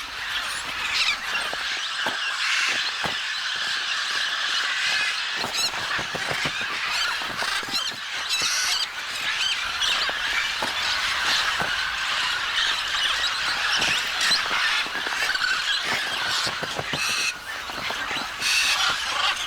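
A noisy flock of macaws calling together at a riverbank clay lick, many calls overlapping in a dense, unbroken chorus.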